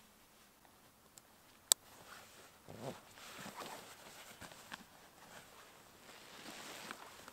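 A single sharp click about a second and a half in, then irregular footsteps scuffing and crunching from about three seconds in.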